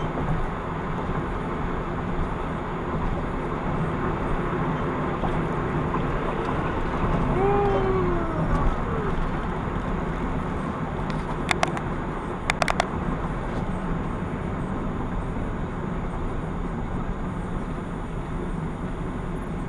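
Steady road and engine noise of a vehicle cruising at highway speed, easing off as it slows near the end. A brief falling tone comes about eight seconds in, and two quick pairs of sharp clicks come around twelve seconds.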